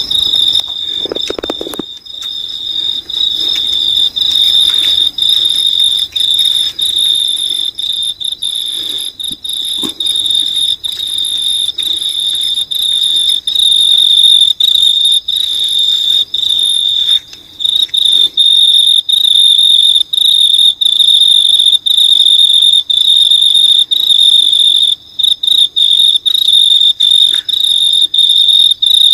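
An insect calling in the dark: one continuous, high-pitched trill that holds steady on one note, broken only by a few very brief gaps.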